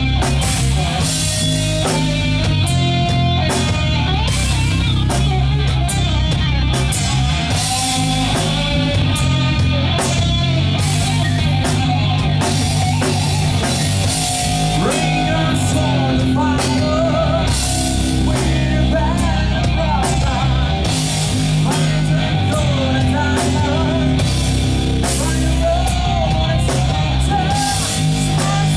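Heavy rock band playing live: drum kit with steadily struck cymbals, distorted electric guitars and bass, with a melodic lead line bending in pitch above them.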